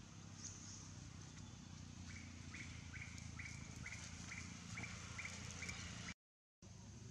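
Outdoor ambience with a steady low rumble and a high hiss. From about two seconds in, a bird calls a run of about eight short, even notes, two or three a second. The sound cuts out completely for about half a second near the end.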